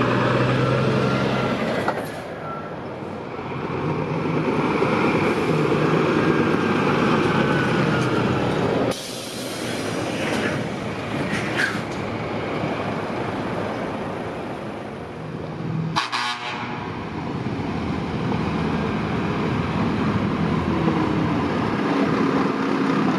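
Scania articulated trucks driving past at road speed: diesel engines running under the hiss of tyres on the road, in several shots that cut abruptly from one to the next.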